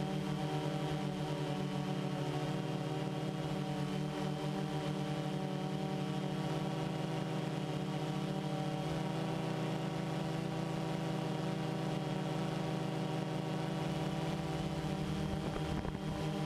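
Multirotor drone's electric motors and propellers running with a steady hum, heard from the camera carried on the drone.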